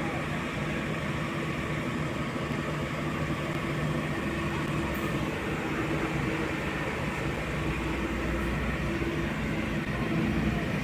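Steady running noise of a motor vehicle: a constant low engine hum with road noise.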